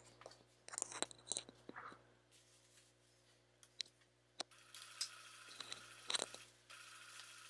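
Stiff waxed canvas crinkling and rustling as it is handled and fed under a sewing machine's presser foot, with a few light clicks. A faint steady hiss comes in about five seconds in, over a low hum.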